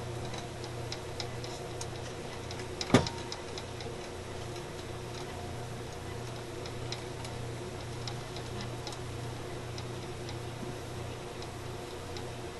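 Steady low electrical hum with scattered light ticks and one sharp click about three seconds in.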